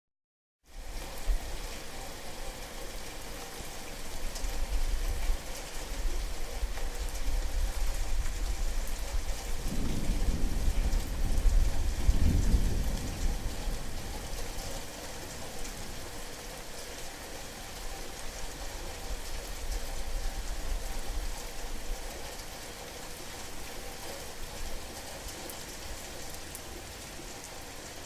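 Heavy rain falling steadily, with a low rumble of thunder that builds and fades about ten to thirteen seconds in.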